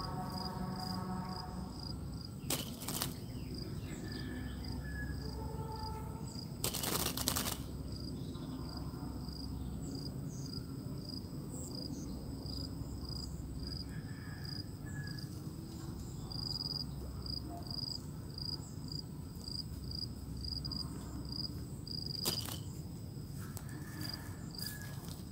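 Insects chirping in a steady, high-pitched pulsing rhythm over a low outdoor rumble, broken by a few brief sharp noises, the loudest about seven seconds in.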